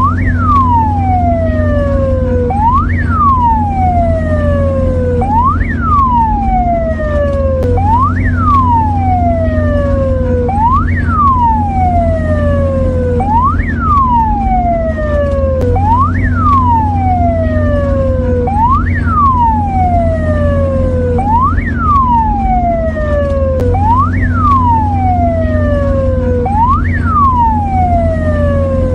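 Mexican ambulance siren sounding continuously: each cycle rises quickly in pitch, then slides slowly back down, repeating about every two and a half seconds over a steady low hum.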